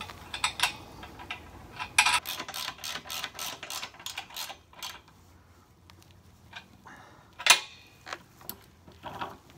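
Small metallic clicks and rattles of a wheel nut and washers being threaded onto a bolt and tightened with a 17 mm socket on a spinner handle. A quick run of clicks for the first half, then a few scattered clicks, with one sharp click about seven and a half seconds in.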